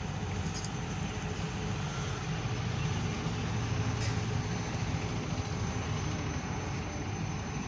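Steady low rumble with an even hiss, without distinct events, typical of outdoor crowd and ambient background noise.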